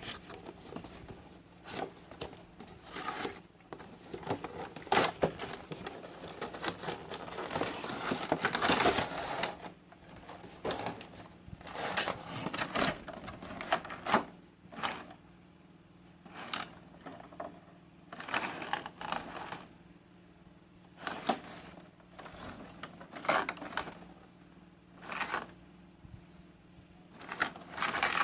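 Plastic toys and their packaging being handled: irregular clicks, knocks and rustling, with the busiest stretch in the first third and scattered taps after.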